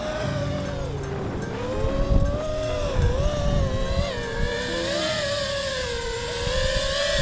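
FPV freestyle quadcopter's brushless motors, run by a Kiss Ultra flight controller and Voltara ESC, whining in flight, the pitch rising and dipping as the throttle changes, with low buffeting underneath.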